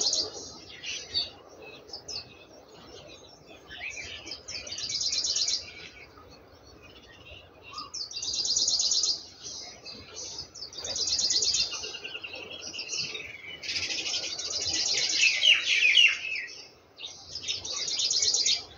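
Small birds chirping: short, fast trills of high notes repeated every two or three seconds, with a few lower sliding notes near the end.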